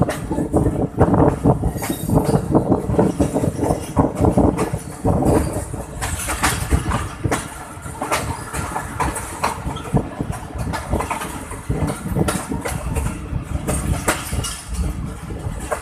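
Passenger train coaches running along the track, heard from an open doorway: a rapid, irregular clatter of knocks from the wheels on the rails over a continuous rushing rumble.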